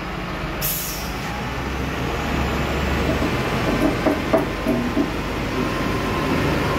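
SDLG wheel loader's diesel engine running as the loader drives, growing slightly louder, with a short hiss about a second in and a few clanks a little past halfway.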